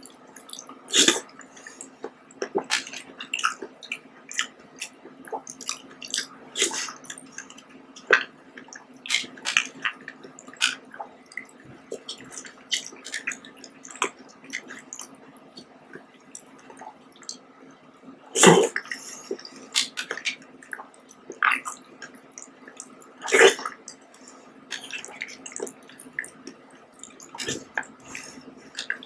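Close-up wet eating sounds of fruit jelly and red grapes: a spoon scooping soft jelly from a plastic cup, with mouth smacks, slurps and chewing as a run of small wet clicks. Two louder smacks stand out, one a little past the middle and one a few seconds later.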